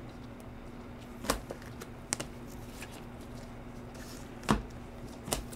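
Chrome baseball cards being flipped through by hand, the cards sliding and tapping against the stack in four short clicks spread across a few seconds, over a faint steady hum.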